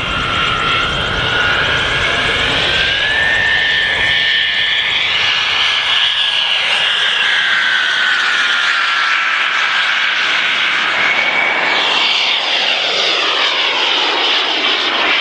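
Radio-controlled Messerschmitt Me 262 model jet flying a display, its twin turbine engines giving a steady high whine over a rushing noise. The whine rises about three seconds in, slides down as the jet passes, and rises again near the end with a sweeping rush as it goes by.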